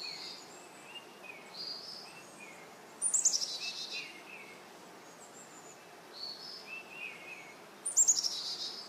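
Small birds calling and singing outdoors, with short high chirps throughout. Two louder runs of quick notes fall in pitch, about three seconds in and again near the end, over a faint steady outdoor hiss.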